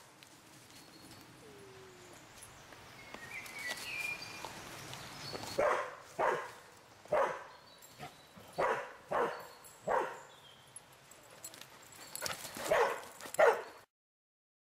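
Standard poodle barking: about eight short barks in pairs and singles, starting about five seconds in, after a quiet stretch with faint bird chirps. The sound cuts off suddenly near the end.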